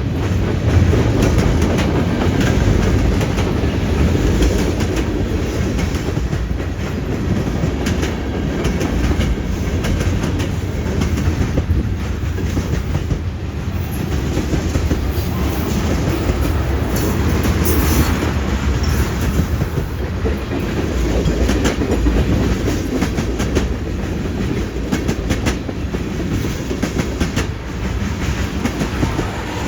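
Freight train cars rolling past: a steady rumble of steel wheels on rail, with frequent clicks and clacks as the wheels cross rail joints.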